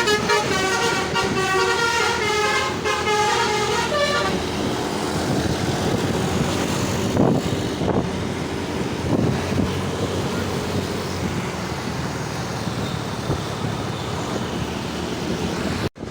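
Bus's multi-tone basuri (telolet) air horn playing a stepping melody for about four seconds, then stopping. The steady running noise of the moving bus and road follows.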